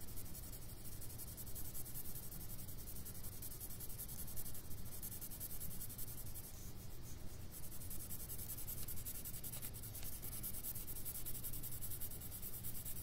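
Red coloured pencil scratching steadily on paper as an area of a drawing is coloured in.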